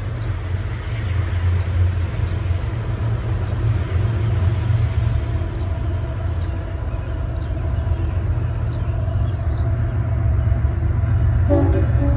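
Diesel locomotives of an approaching CSX freight train, rumbling steadily and growing slightly louder as they near. Near the end the locomotive horn starts to blow.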